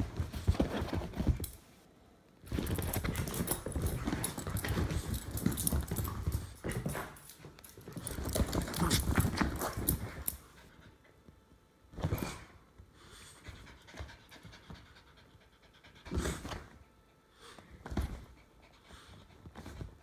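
An English Bulldog and a Jack Russell Terrier mix play-fighting, with heavy dog panting and scuffling in long noisy stretches through the first half, then a few short separate bursts.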